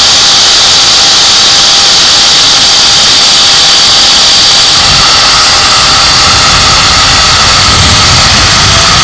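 CNC milling machine spindle with an end mill running at high speed: a loud, steady high-pitched whine over a hiss. A deeper rumble joins about halfway through.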